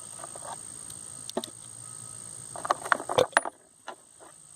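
Metal hand tools clinking and rattling as they are handled, with a few single clicks and a burst of clatter about three seconds in.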